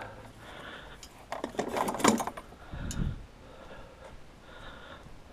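Light metallic clinks and knocks from handling an aluminium cart frame and its parts, bunched about one to two seconds in, followed by a single dull thump.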